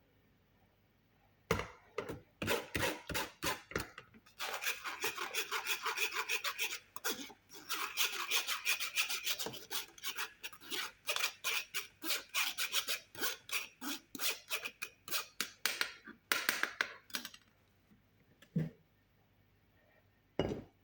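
A kitchen utensil scraping or rubbing in quick repeated strokes, several a second, with short pauses about 4 and 7 seconds in and stopping near the end, followed by a couple of single knocks.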